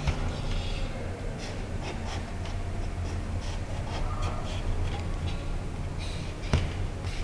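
Marker pen drawing outlines on a painting, a run of short, uneven scratching strokes over a steady low hum. A sharp tap about six and a half seconds in.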